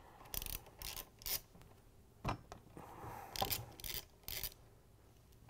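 Hand ratchet with a #3 Phillips bit working loose tight screws on a KitchenAid mixer's metal lower housing: short clicking and grinding bursts, several in a row, as the screws are broken free.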